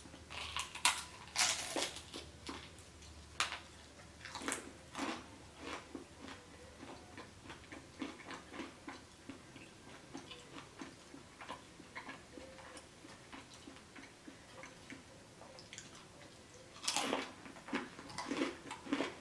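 Close-miked chewing as a person eats: irregular wet mouth clicks and smacks, with louder clusters about a second in and near the end.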